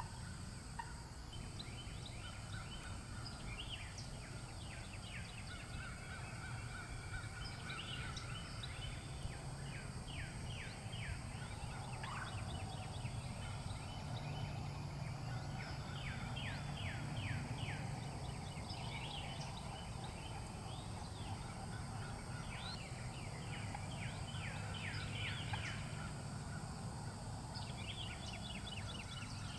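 Eastern wild turkey gobbling about six times, each gobble a quick rattling burst, over a steady low outdoor rumble.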